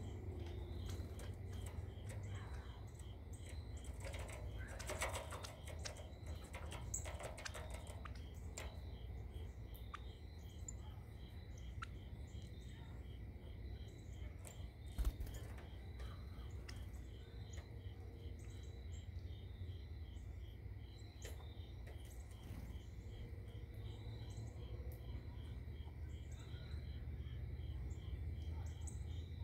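Birds chirping, with a quick run of sharp high calls a few seconds in, over a steady, evenly pulsing chorus of crickets and a low background rumble. A single sharp knock about halfway through is the loudest sound.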